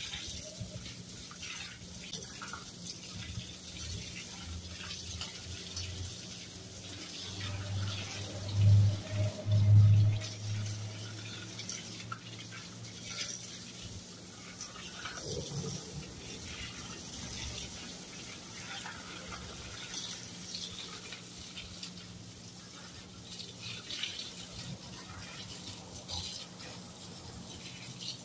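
Water spraying from a garden hose onto plants and wet ground, a steady splashing hiss. About a third of the way through come two louder low thumps.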